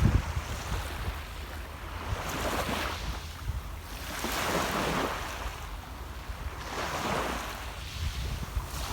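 Small sea waves breaking and washing on the shore, the surf swelling and fading three times, about every two seconds, over a low rumble of wind on the microphone.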